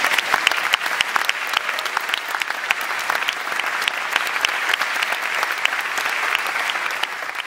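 A theatre audience applauding: many hands clapping together at a steady level.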